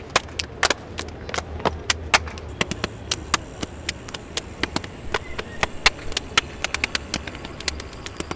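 A group of dancers clapping their hands and stepping on stone paving: a quick, uneven patter of sharp claps and steps, several a second, not in unison.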